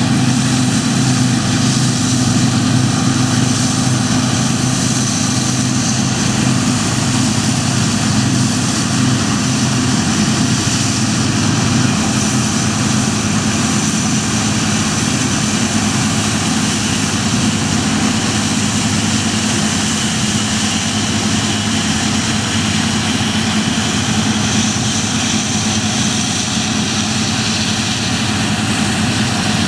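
New Holland TX68 combine harvester running steadily: a constant engine drone with a wide rushing noise over it.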